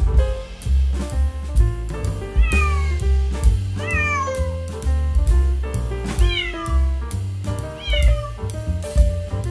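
Kitten meowing four times, each call short and falling in pitch, over background music with a steady beat and bass line.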